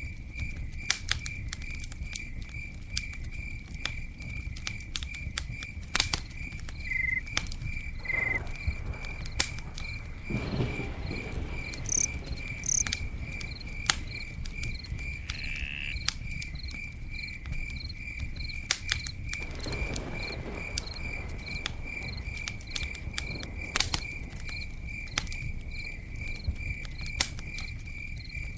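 Campfire crackling, with sharp pops over a low rumble, while a cricket chirps in a steady, even rhythm. A few brief high calls come in around the middle.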